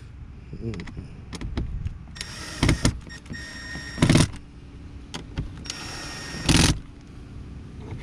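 Cordless drill-driver driving three Phillips screws into the plastic of a car's interior door handle assembly: three short whirring runs of about a second each, each ending louder as the screw seats.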